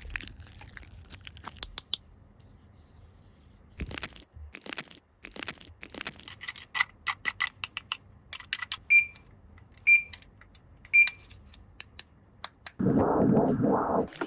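Plastic toy pieces and packaging being handled: scattered clicks, taps and crinkling, with three short high beeps about a second apart in the middle and a louder rushing burst near the end.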